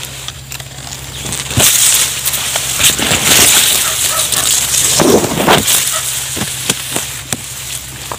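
Grass and leaves rustling and crackling close to the microphone as someone pushes through dense vegetation, with scattered sharp snaps of stalks.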